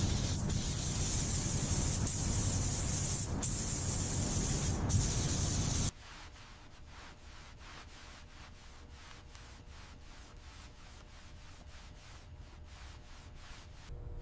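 Loud, steady spray hiss, as from an air-driven spray or blasting tool, that cuts off suddenly about six seconds in. After it comes a much quieter stretch of faint, quick, regular rubbing strokes, about three to four a second.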